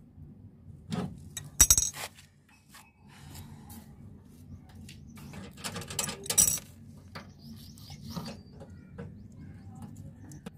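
Hand tools clicking and clinking against the brass service valve fittings of a split air conditioner's outdoor unit. Scattered small metallic ticks, with the sharpest clicks a little under two seconds in and again around six and a half seconds in.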